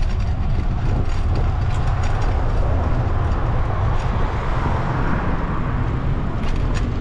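Steady rumble of wind on the microphone of a bike-mounted camera while riding along a city street, with road traffic around. A passing vehicle swells and fades about four to six seconds in.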